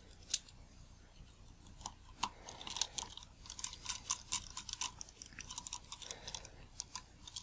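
Faint, irregular small metal clicks and scrapes of a precision screwdriver working the tiny screws of a Nikon Series E 50mm lens's bayonet mount.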